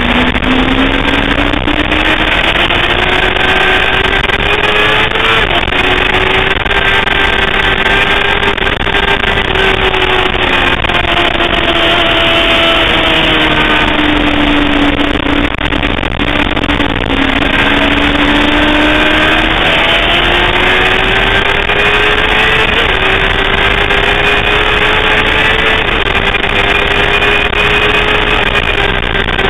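Sportbike engine running hard on a racetrack, heard on board over steady rushing noise. The engine note climbs and falls as the bike accelerates and brakes, with a few brief steps where it shifts gear.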